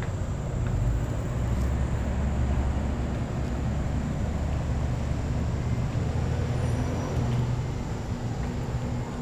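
Steady low rumble of motor traffic, with a faint even engine hum running through it.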